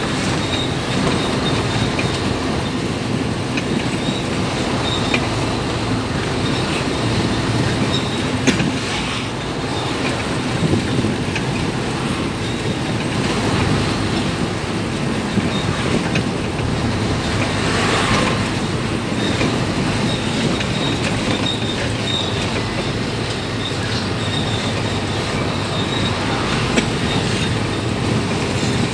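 Steady engine and road noise inside the cab of a large vehicle driving along a highway, with light rattles and ticks from the body.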